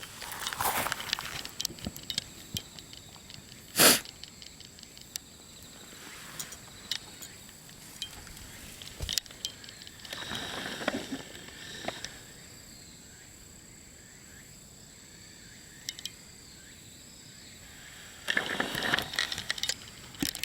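One sharp human sneeze, sudden and short, about four seconds in, meant to startle the cats. Softer rustling noises come and go around it.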